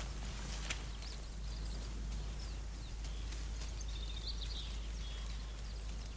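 Outdoor ambience: a steady low hum with a few short, high bird chirps near the middle.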